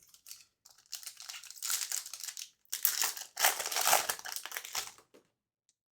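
Trading-card pack wrapper crinkling as it is handled, in two spells: one starting about a second in and a louder one from about three seconds, stopping about five seconds in.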